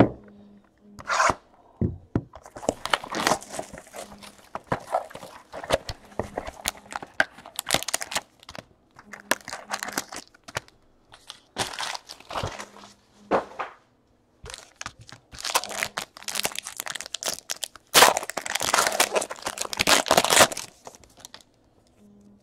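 Foil trading-card pack wrappers tearing and crinkling, with cards rustling as they are handled. The tearing and crinkling is loudest about three-quarters of the way through.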